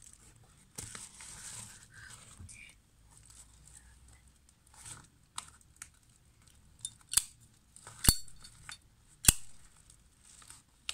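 Plastic sleeve rustling as a Zippo Brushed Chrome 200 lighter is slid out, then sharp metallic clicks of the lighter's chrome lid flipping open and snapping shut, the last two clicks the loudest and briefly ringing.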